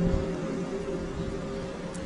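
A low, drawn-out drone of several steady tones, fading away over a steady hiss.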